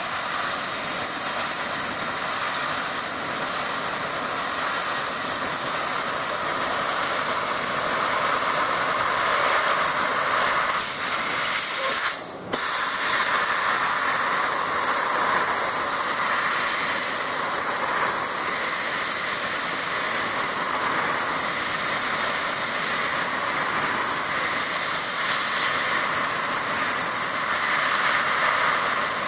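Steady, loud hiss of the assist-gas jet at the cutting head of a 500 W CNC fiber laser as it cuts 2 mm galvanized steel sheet, with a thin high whine over it. About twelve seconds in, the hiss drops out for a split second and comes straight back, as the head pauses between cuts.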